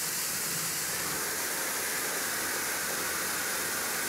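A 1500 psi household pressure washer spraying steadily, its water jet hissing as it hits concrete.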